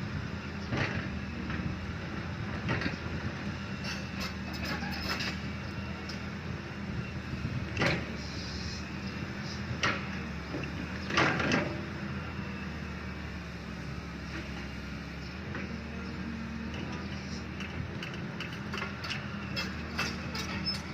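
Excavator's diesel engine running steadily under load, with scattered metallic knocks and scrapes from the bucket and boom working the ground. A cluster of louder knocks comes about eleven seconds in.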